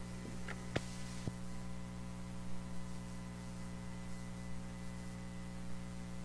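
Steady electrical mains hum with a hiss of static, broken by two sharp clicks a little under a second and about a second and a half in.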